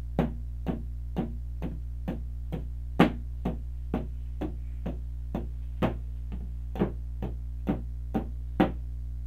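Electronic percussive tones playing a steady run of eighth notes, about two a second, with a louder stroke every sixth note marking the first beat of each 3/4 bar. A steady low hum runs underneath.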